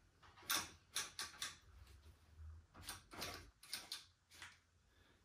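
Adjustable dumbbells being handled in their floor cradles: an irregular run of sharp plastic-and-metal clicks and clacks from the weight plates and selector mechanism.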